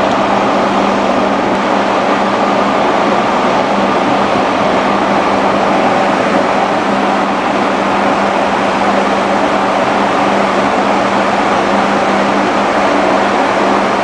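Steady machinery drone aboard a container ship: a constant low hum under a loud, even rush of noise, with no change throughout.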